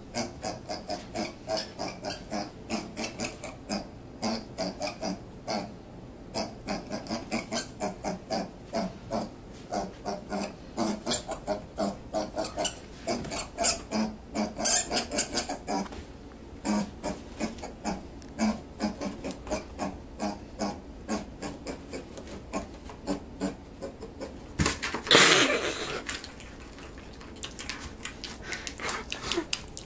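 Piglet grunting steadily in short grunts, two or three a second. About 25 seconds in there is one louder, noisier sound lasting about a second, and after it the grunts come softer.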